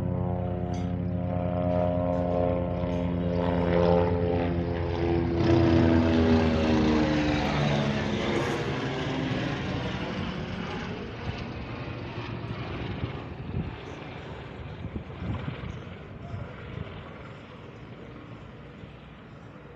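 Helicopter flying low past: a steady rotor and engine drone whose pitch drops as it goes by, loudest about five or six seconds in, then fading away.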